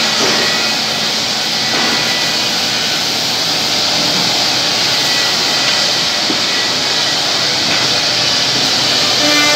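Woodmaster ten-head CNC mortising machine running, its cutting heads routing mortises into wooden chair parts: a steady, loud machining noise.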